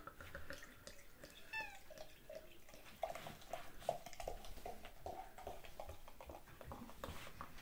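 Ale glugging out of a glass bottle into a stemmed glass, a quick steady run of glugs from about three seconds in. A brief falling tone sounds about a second and a half in.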